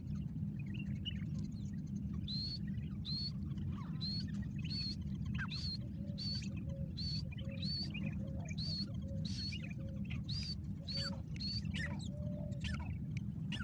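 Small birds chirping, short high chirps repeating about once or twice a second with some lower calls among them, over a steady low rumble of background noise.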